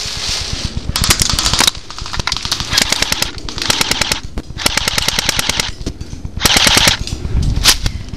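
Airsoft guns firing about five rapid full-auto bursts, each a fast string of sharp clicking pops lasting half a second to a second.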